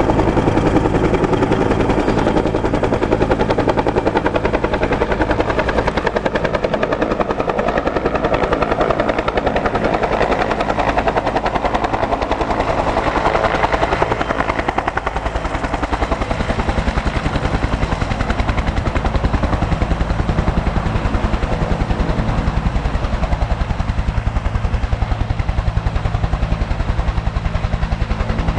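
Bell 205A-1 (Huey) helicopter's two-bladed main rotor beating in a fast, even rhythm over its turbine engine as it comes down into a low hover and sets down, rotor still turning.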